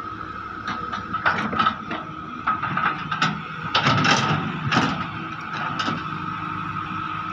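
Heavy excavator running steadily, with a run of sharp knocks and clatter from about one to six seconds in, loudest around four to five seconds.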